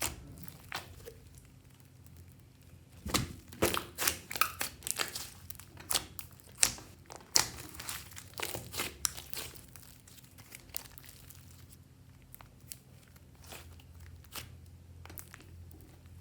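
Hands kneading and stretching clear slime mixed with clay, giving off irregular sticky pops and crackles. They come thick and fast from about three to nine seconds in, then thin out to scattered pops.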